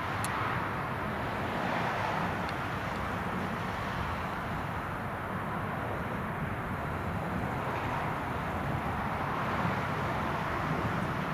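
Jet engines of a twin-engine wide-body airliner passing overhead, a steady rumble that swells and eases slowly.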